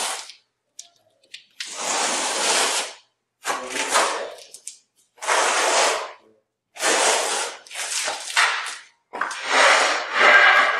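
Notched trowel scraping and spreading thin-set tile adhesive: about five rough scraping strokes, each one to two seconds long, with short gaps between.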